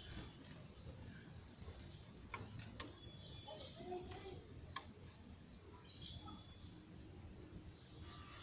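Small birds chirping faintly in short high calls, with a few sharp clicks in between.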